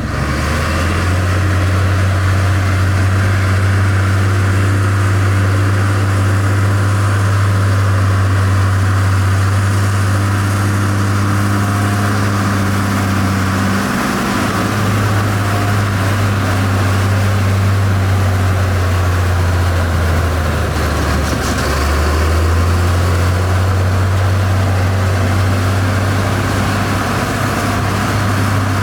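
Heavy diesel engine of a dump truck or bulldozer running steadily with a deep hum. Its pitch dips and recovers about halfway through and again a few seconds later, as the revs change.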